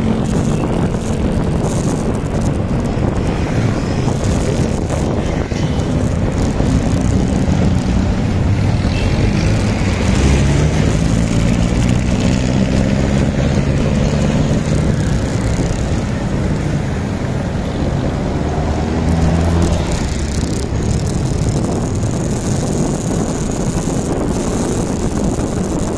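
Motorcycle engine running under way, with wind rushing over the microphone. In the middle stretch the engine note climbs and drops several times as the bike speeds up and eases off.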